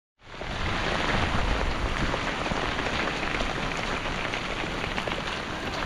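Steady rain falling, a dense even hiss full of small drop impacts with a low rumble underneath.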